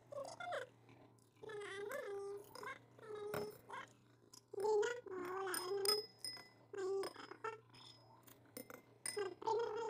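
Eating soup with metal spoons from stainless steel bowls: sharp spoon clicks and clinks against the steel, between repeated short high-pitched 'mmm' sounds from the eaters.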